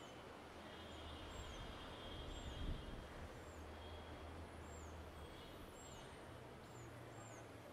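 Faint steady rumble of distant city traffic, with a bird repeating a short, high chirp over and over, a little more than once a second.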